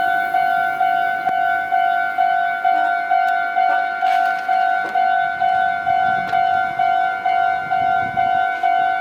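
Japanese railway level crossing's electronic warning bell ringing one repeated tone, about two and a half strokes a second: the crossing signal that a train is approaching and the barriers are coming down.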